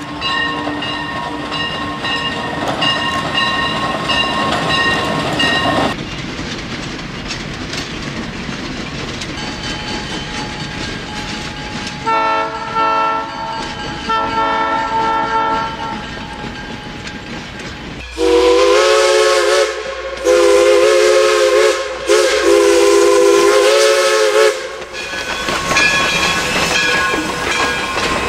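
Train running with wheels clicking over rail joints while its horn sounds repeatedly, ending in three loud, long blasts.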